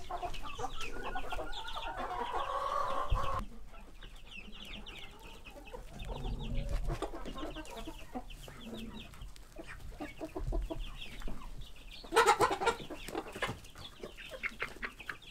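A flock of hens clucking, many short repeated clucks overlapping, with a louder burst about twelve seconds in.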